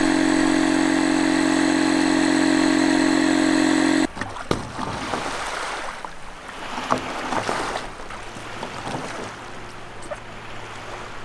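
A loud, steady droning tone with many overtones, which cuts off abruptly after about four seconds. Then shallow seawater splashes and laps around a man's legs and a stand-up paddleboard as he wades it out from a pebbly beach, with a few sharper splashes.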